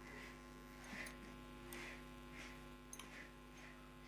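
Faint steady electrical hum with several soft rustles of cotton blouse fabric being handled and smoothed on the table.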